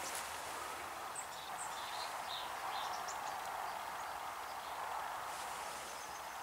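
Faint, steady background hiss with a few short, high chirps scattered through it, like small birds.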